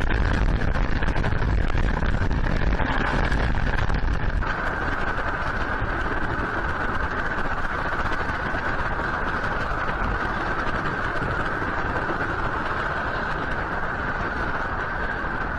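Steady outdoor noise from fixed rooftop cameras, a strong low rumble with a hissing band over it; the rumble drops away abruptly about four seconds in as the picture changes, and a steady hiss-like noise continues.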